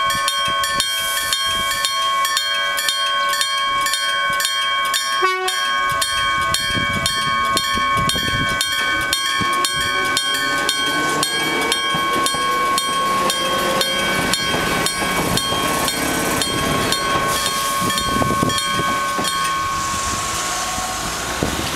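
Electric gong bell of a railway level crossing ringing, struck in a rapid, even series. A train passes through the crossing, its motor whine rising about six seconds in. The gong stops near the end, leaving the rush of the passing train.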